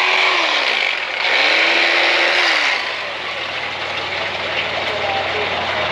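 Electric fillet knife running in two short bursts, the second about a second and a half long. Each ends in a falling whine as the motor winds down.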